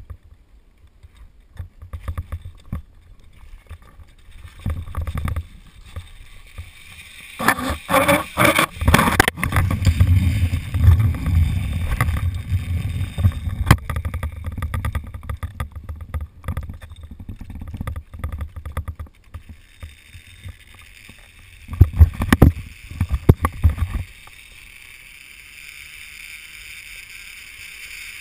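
Caving gear working along a steel-cable tyrolean traverse: metal hardware on the cable scraping, rumbling and clattering, with gear and glove rubbing near the helmet-mounted camera. Bursts of loud knocking come about a third of the way in and again near the end, then the sound drops to a steady faint hiss.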